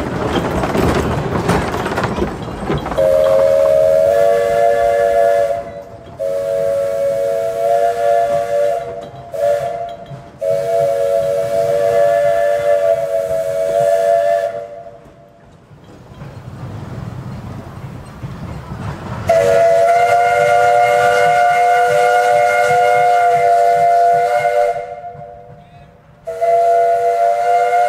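A steam locomotive's chime whistle sounds a chord in several long blasts, with a pause of a few seconds partway through. A rush of steam is heard at the start. The locomotive is a 1927 Vulcan 0-4-0T tank engine.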